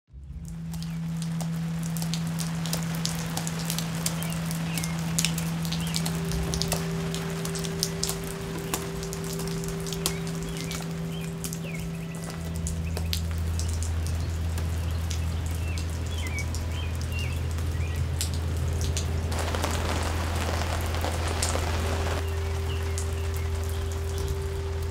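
Steady rain falling and pattering on wet pavement, fading in at the start and growing briefly heavier about twenty seconds in. Under it runs a steady low drone that drops to a deeper pitch about halfway through.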